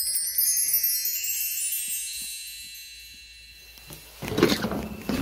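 A shimmering wind-chime sound effect: a run of many high tinkling notes that fades out over about four seconds. Near the end come a few knocks and rustling, the loudest a sharp knock just after the chimes die away.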